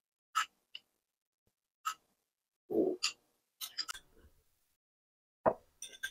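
Scattered light clinks of a metal spoon against a glass bowl as gravy is spooned out. Two duller knocks come in, one a little under three seconds in and one near the end, when the bowl is set down on the wooden board.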